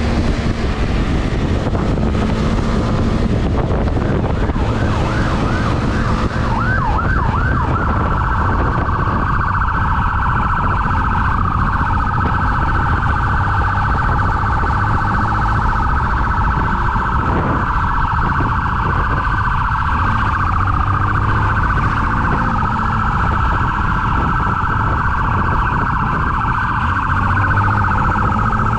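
Police siren, with a few quick yelps about six seconds in and then a steady wavering wail. Under it run a motorcycle engine and wind noise from riding.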